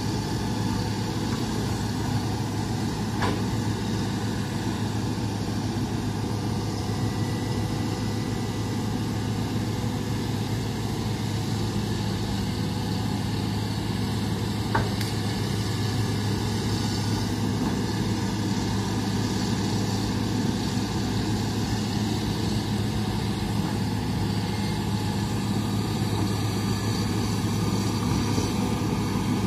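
Hitachi hydraulic excavator's diesel engine running steadily as the machine works, a low, even hum throughout. Two faint knocks stand out, one a few seconds in and one about halfway through.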